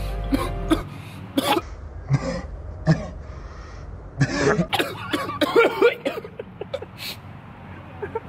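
A man gagging, retching and coughing in a series of separate bursts, on a foul-flavoured jelly bean. Music cuts off about a second in.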